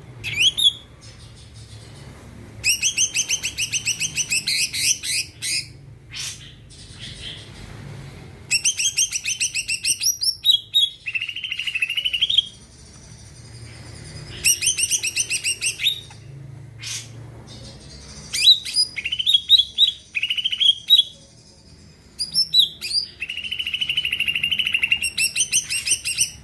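Green leafbird (cucak ijo) singing loud phrases of fast, stuttering high notes, each lasting two to three seconds, with short pauses and a few sweeping whistles between them.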